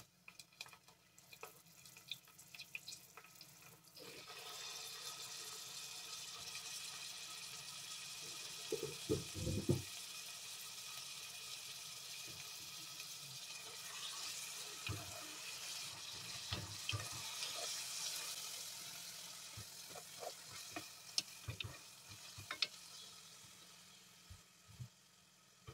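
Pieces of raw meat sizzling in hot oil with chopped onion in a pot, with the wooden spoon stirring and knocking. Light clicks come first, the steady sizzle starts about four seconds in, and a louder thump comes near ten seconds.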